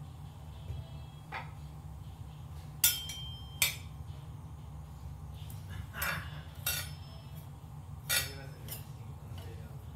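Stainless steel skillet clinking and knocking as chopped chorizo and a utensil go into it: scattered sharp knocks, the loudest about three seconds in, some with a short metallic ring, over a steady low hum.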